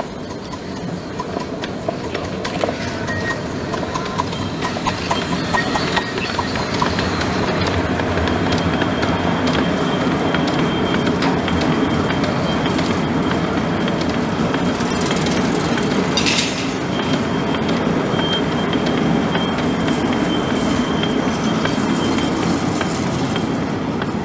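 Miniature steam locomotive and its train of passenger-carrying wagons passing close by, the wheels rumbling and clicking on the track. The sound builds over the first several seconds and stays steady as the wagons roll past, and a thin high squeal joins about halfway through.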